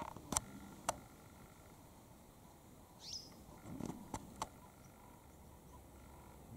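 Faint outdoor bush ambience, with a few sharp clicks about half a second and a second in and again around four seconds in, and one short high call that falls in pitch about three seconds in.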